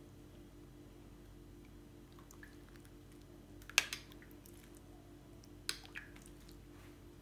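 Metal spoon scooping a runny egg mixture from a glass bowl and drizzling it over yufka pastry sheets: a few light clicks of spoon against glass, one about four seconds in and two smaller ones near six seconds, over a low steady hum.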